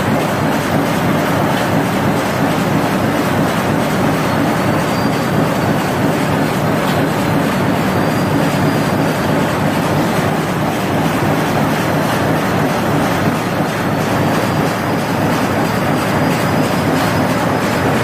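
High-speed four-colour printer slotter die cutter with waste removal running, a loud steady mechanical clatter with a faint high whine that wavers in pitch.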